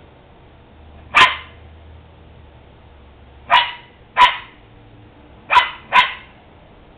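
Pembroke Welsh corgi barking up at a squirrel cornered in a tree: five short, sharp barks, one about a second in, then two quick pairs.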